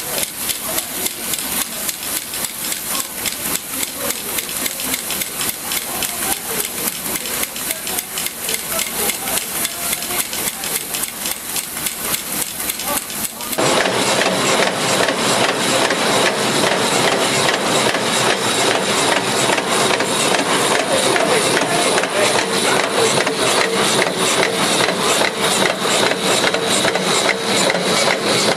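Screw-making machinery running: a fast, regular mechanical clatter of repeated metal strokes. About halfway through, it cuts to a louder, denser rattle from another machine.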